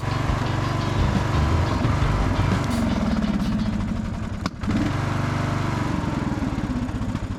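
Riding lawn mower's engine running steadily while mowing, with a brief break a little past halfway.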